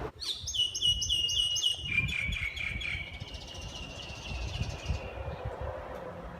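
A bird singing a long series of quick repeated whistled notes, several a second, that step steadily down in pitch over about five seconds before fading out.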